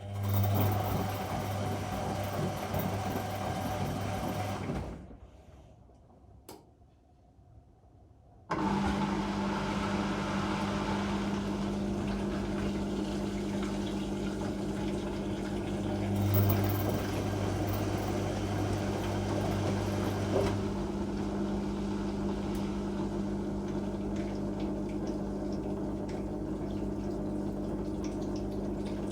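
Whirlpool Indiana 1400 washing machine taking in water, a steady hum under rushing water. It runs for about five seconds, stops for about three and a half, then starts again abruptly and runs on steadily.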